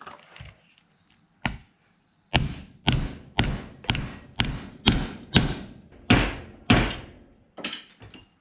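Hammer striking a white plastic block laid on old bearings, driving a new bearing race down into a Toyota Land Cruiser FJ40 front wheel hub: a light tap, then about ten firm blows at roughly two a second.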